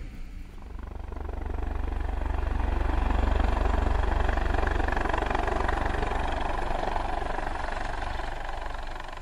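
A steady engine-like drone with a fast low flutter and a rushing noise above it. It builds over the first couple of seconds, holds, then fades near the end.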